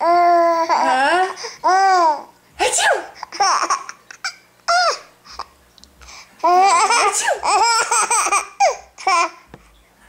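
A baby laughing and squealing in high-pitched bursts. A long, wavering squeal comes at the start, short laughs follow in the middle, and a run of quick, repeated laughs comes in the last third.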